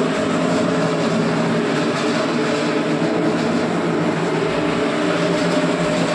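Steady mechanical drone of a running motor: a constant hum with a few low tones over a rushing noise, unchanging in level.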